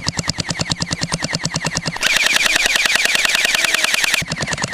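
Battery-powered toy blasters firing on full auto: a steady rapid clatter of about a dozen shots a second over a motor whine. The tone of the firing changes about two seconds in and again near the end.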